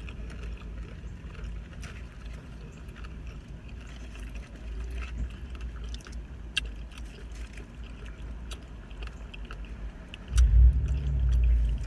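Someone eating a Chipotle burrito bowl: scattered small clicks and chewing sounds over a steady low rumble of a car cabin. About ten seconds in the low rumble swells suddenly and stays louder.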